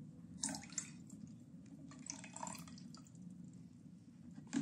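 Lemon juice poured into a jar of liquid, faint dripping and trickling, with a short sharp knock near the end.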